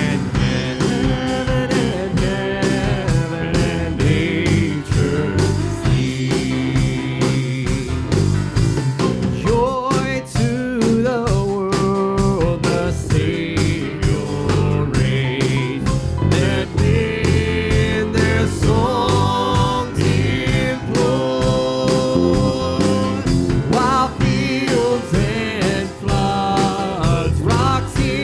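Live church worship band playing an instrumental passage with a steady beat and a lead melody line.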